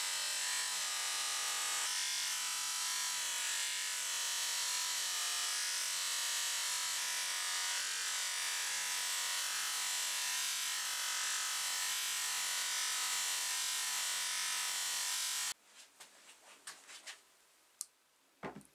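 Villager bench grinder running, with a steel hammer head pressed to its spinning wheel: a steady motor hum under a loud grinding hiss. The hiss stops abruptly about three-quarters of the way through. Faint clicks and a knock follow as the hot hammer head is set into a plastic tub of water to cool, so that the steel does not soften.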